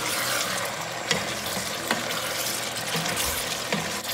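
Chicken curry sizzling in a stainless steel pot as it is stirred with a wooden spatula, with a couple of sharper knocks of the spatula on the pot.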